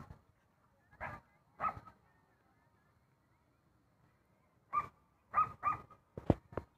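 A dog barking in short single barks: two about a second apart, then a pause, then a quicker run of about five near the end.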